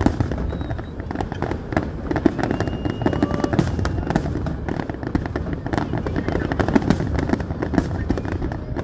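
Fireworks display going off: a dense, continuous crackle of many overlapping bursts and pops.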